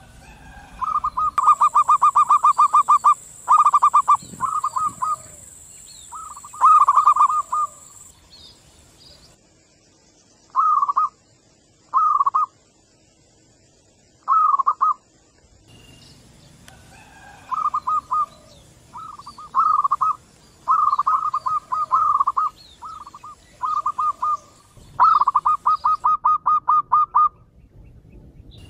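Zebra doves cooing back and forth: runs of quick, rippling notes, one phrase answering another. The calling thins to a few short single phrases near the middle, then picks up again.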